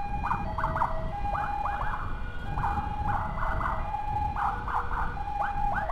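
Emergency escort siren sounding in short, quick up-and-down sweeps broken by brief steady tones, started and stopped again and again, over the low rumble of wind and traffic.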